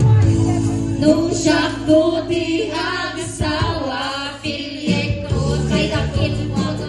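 A birthday song sung in Ilocano by male and female voices together, choir-like, over a steady instrumental backing.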